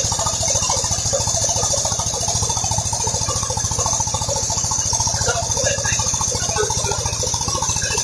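Mobile rice mill's engine running steadily with a fast, even pulse while the mill is fed with sacks of rice.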